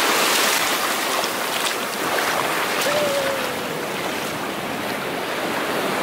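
Shallow ocean surf washing over sand at the water's edge: a steady hiss of foaming water that eases off a little partway through.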